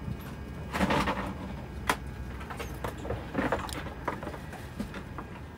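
Steady low rumble with scattered clicks, knocks and rustling; a cluster of louder knocks about a second in and a sharp click near two seconds.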